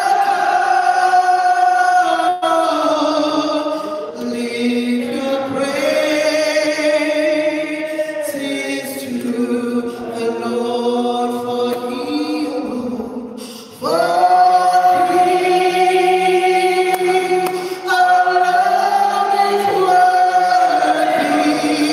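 Solo voice singing a gospel song into a handheld microphone, holding long notes, with a short break for breath a little past halfway before the voice comes back in strongly.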